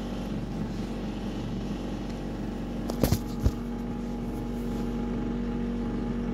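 A steady low mechanical hum, with a few sharp clicks and knocks about three seconds in.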